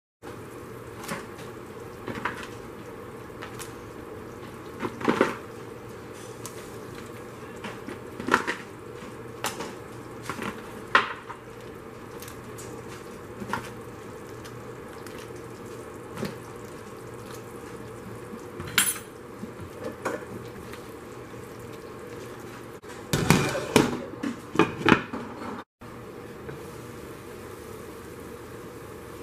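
Scattered knocks and clinks of a stockpot, its lid and utensils over a steady hiss from the pot boiling on a gas stove. There is a burst of clattering about 23 seconds in.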